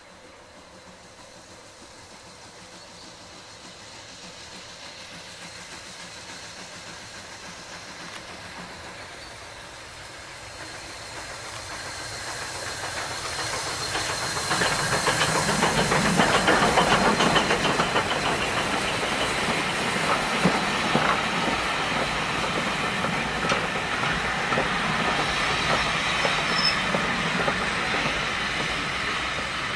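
Steam locomotive, NER-liveried J27 0-6-0 No. 2392, approaching and passing at speed with a train of coaches: its exhaust and steam hiss grow steadily louder over the first half. The sound is loudest as the engine passes about halfway through, then the carriages roll by with wheels clicking over the rail joints.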